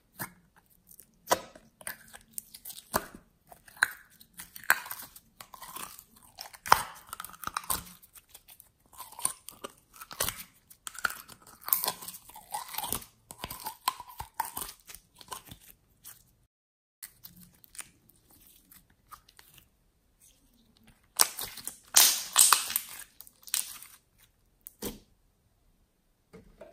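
Gold glossy glitter slime being squeezed and emptied out of small plastic cups and toy containers, with sticky squishing, crackling and the clicks of the plastic. A denser, louder stretch of crackling comes about three quarters of the way through.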